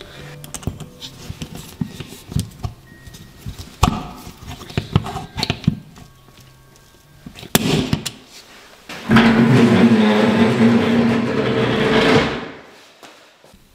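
Clicks, taps and knocks of metal cabinet-hanging hardware being fitted against a wall. About nine seconds in, a cordless drill runs loud and steady for about three seconds, then stops.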